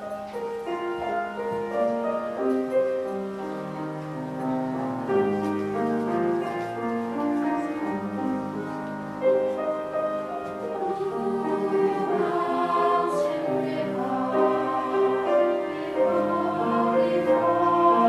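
A young mixed choir singing sustained notes in harmony, accompanied by a grand piano.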